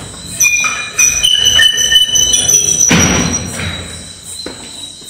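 Door being forced open: its hinges or latch squeal in several high, steady pitches that shift for about three seconds, with thuds from the door near the start and about three seconds in.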